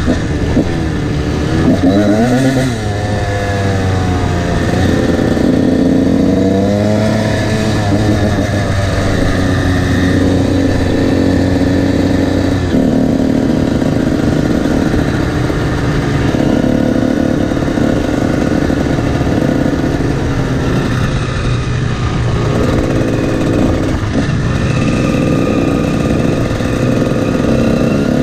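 Honda CR125 two-stroke dirt bike engine running on the road, its pitch rising and falling as it revs and shifts gears, with a steadier stretch in the middle.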